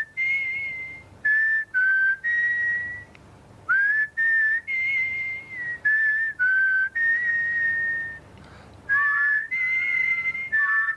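A person whistling a tune: clear single notes, some scooping up into pitch, phrased with short breaks between them.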